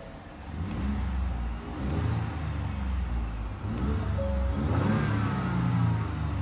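Ford F-150 pickup's engine revved in park, heard from inside the cab: the revs rise and fall twice, the second climb reaching close to 4,000 rpm near the end.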